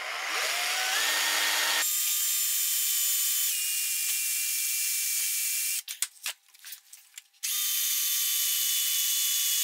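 Electric drill boring a hole into a milling machine's metal base. The motor spins up with a rising whine and runs steadily, its pitch dropping slightly about three and a half seconds in as it takes load. Around six seconds in it stops for a moment of short stop-start blips and clicks, typical of the bit catching at an uneven breakthrough, then runs steadily again.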